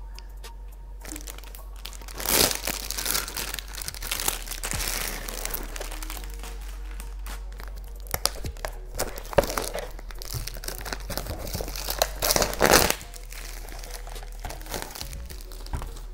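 Plastic packaging bag crinkling and tearing as it is pulled open and a laptop case is taken out. The crackling is irregular, with louder bursts about two seconds in and again around twelve to thirteen seconds, then quieter handling.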